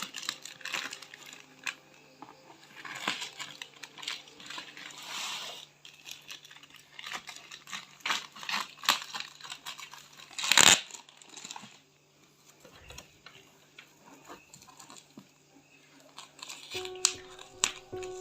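Packaging of a mini toy claw machine being opened by hand: irregular crinkling, rustling and tearing of plastic and cardboard, with one louder rip about ten seconds in.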